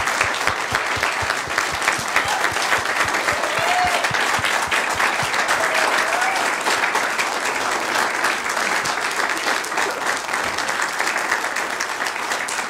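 Congregation applauding steadily, with a few voices faintly heard over the clapping.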